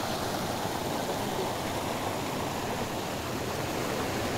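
Rain-swollen floodwater rushing and spilling over a low bank in a small cascade: a steady, even rush of water.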